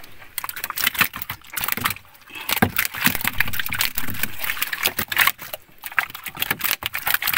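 Water lapping and slapping against the hull of a small wooden boat: a rapid, irregular patter of small splashes and knocks.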